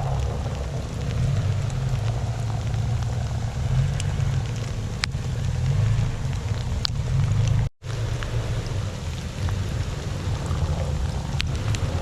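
Steady low rumble of a vehicle engine and tyres over snow, with scattered small clicks and ticks. The sound cuts out completely for a split second about two-thirds of the way through, then resumes the same.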